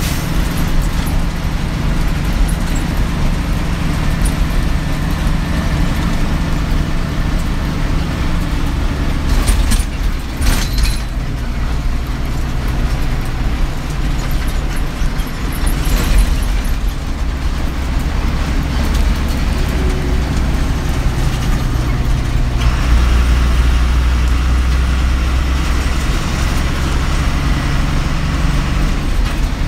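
Bus engine running under way with tyre and road noise, heard from inside the cabin. The engine note shifts about ten seconds in and again a few seconds before the end, and a few short knocks come in between.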